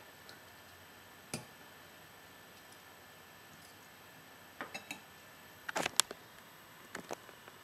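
Knife and fork clicking against a ceramic plate while cutting into a layered moussaka: a few scattered sharp clicks, with a louder cluster of clicks and knocks about six seconds in.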